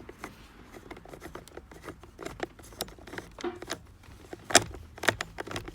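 Irregular clicking and light metallic rattling of a hand tool turning the steering wheel's airbag screws in by hand, with one sharper click about four and a half seconds in.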